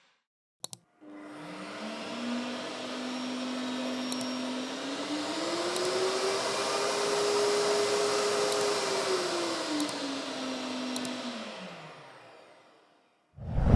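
Industrial wet-and-dry vacuum cleaner switched on with a click, its motor spinning up to a steady whine. The motor speed rises to a higher pitch midway, drops back, then winds down and stops.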